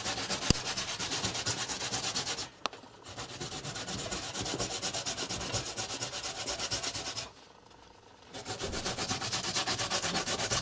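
Carrot being grated on a hand grater: quick, even rasping strokes about four a second, stopping briefly twice.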